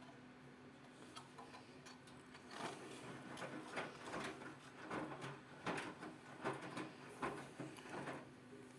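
Ariston 4.5 kg front-loading washing machine in the wash phase of its cotton 40° programme: a steady low hum, with the drum turning and the wet laundry tumbling as a run of irregular swishes and knocks from a few seconds in until near the end.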